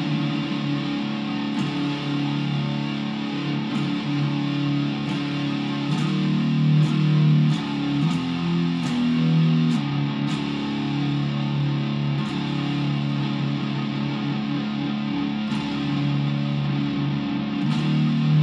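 Electric guitar played through distortion, held notes and chords ringing continuously and changing every second or so.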